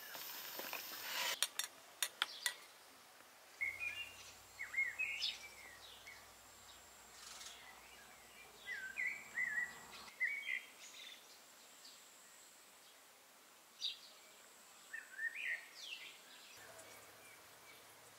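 A songbird singing in three short bursts of quick rising and falling chirps, over a faint steady high tone. A few sharp clicks come in the first couple of seconds.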